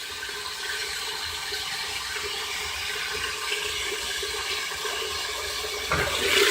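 Whirlpool Direct Drive top-loading washing machine filling its wash basket with water: a steady rush of inflowing water that grows louder near the end.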